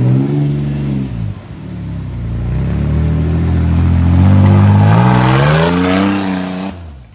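Off-road 4x4 race vehicle's engine revving hard under heavy throttle. The revs drop about a second in, build again and climb, then stop abruptly near the end.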